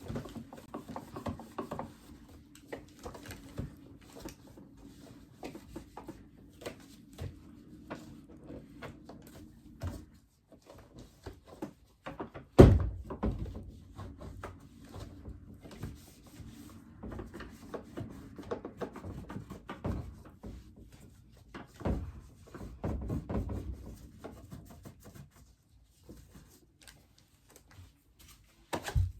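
Scattered knocks and clicks over a steady low hum, with one loud thunk about twelve and a half seconds in.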